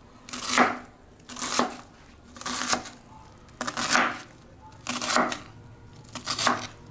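Kitchen knife slicing through a red onion onto a wooden cutting board, about six separate strokes roughly a second apart.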